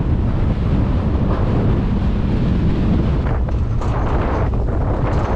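Strong wind buffeting the microphone, a dense, steady low rumble, with a few short crackles in the second half.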